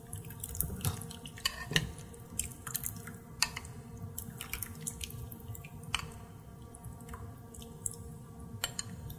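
Silicone spatula stirring a pot of thick creamy chili as a sour cream and milk mixture is poured in slowly, with wet stirring sounds and irregular light clicks of the spatula against the pot.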